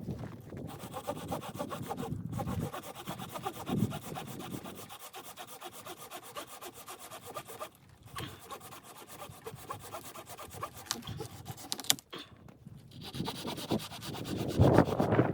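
Rhythmic scraping of a hand tool working wood, stroke after stroke, with short pauses about two, eight and twelve seconds in.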